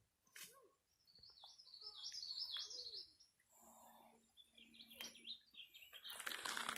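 A songbird singing faintly in two warbling phrases: one about a second in, and a shorter one around five seconds in.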